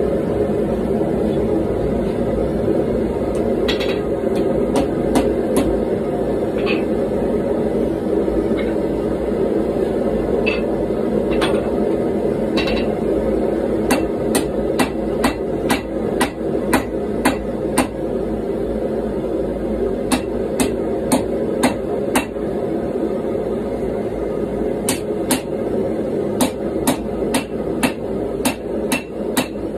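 Hand hammer striking a hot GoMai billet of wrought iron, nickel and 1095 steel on an anvil, a few scattered blows at first and then runs of quick blows about two to three a second with short pauses. A gas forge runs steadily underneath.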